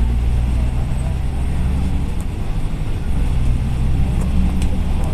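Inside a moving bus: steady low engine drone and road rumble.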